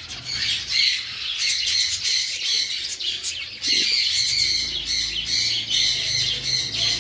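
A flock of zebra finches calling, a continuous chatter of many overlapping short high calls. A low hum joins underneath about four seconds in.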